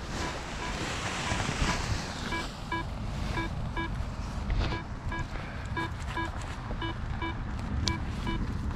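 Paragliding variometer beeping in short, steady-pitched pips, about two to three a second, over wind buffeting the microphone.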